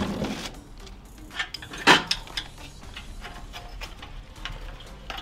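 Scattered light metal clinks and taps, the sharpest about two seconds in, as tapered torque cones are worked into motorcycle exhaust pipes.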